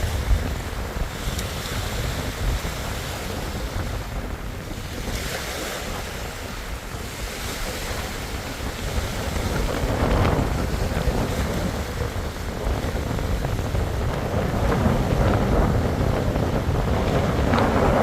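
Strong wind buffeting the microphone with a heavy low rumble, over choppy reservoir water splashing and washing. The sound swells louder about ten seconds in and again near the end.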